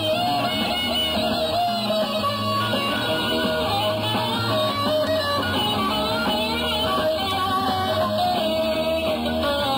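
Rock band playing live, with electric guitar to the fore.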